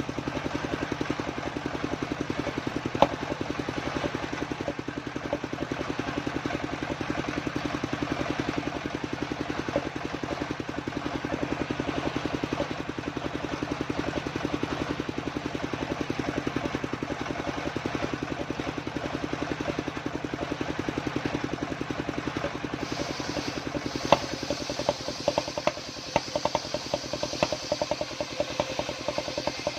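Engine of a homemade circular sawmill running steadily with a rapid pulsing hum. From about 23 s in, a higher hiss and irregular clattering ticks are added over the engine.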